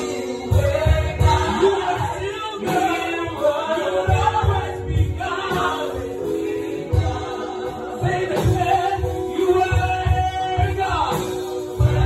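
Gospel music: a choir singing over a steady low beat.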